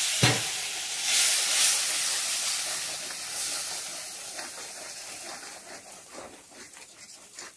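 A splash of water on hot oil and fried onion-tomato masala in a metal kadai, hissing and sizzling hard at first and slowly dying down as a steel spatula stirs it. The spatula clanks once on the pan just after the start.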